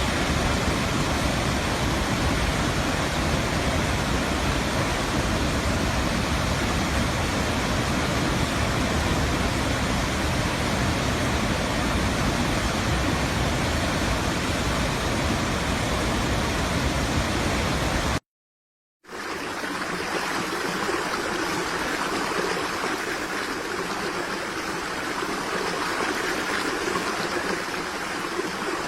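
Waterfall: steady rush of falling water. About two-thirds through it cuts out for under a second, then a lighter rush of flowing water with less deep rumble follows.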